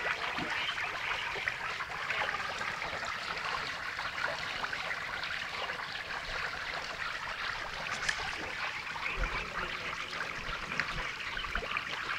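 Many fish churning at the surface of a pond, a steady, dense run of small splashes and trickling water.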